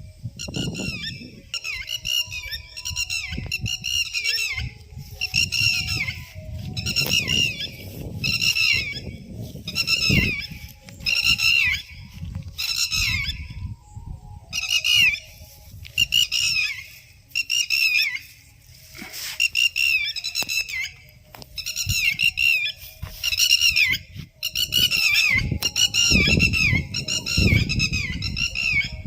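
Birds calling: high, downward-sliding chirps bunched in bursts about once a second, with a low rumbling noise underneath.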